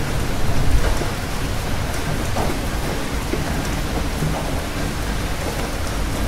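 Steady rain falling, with a low thunder rumble that swells in the first second and then gives way to the rain alone.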